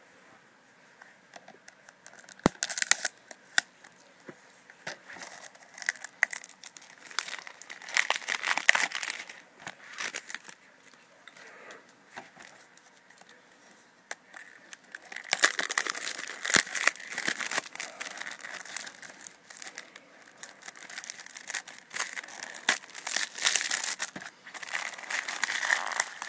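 Plastic shrink wrap being picked at, torn and peeled off a DVD case, starting about two seconds in: irregular bursts of crinkling and tearing with some sharp clicks.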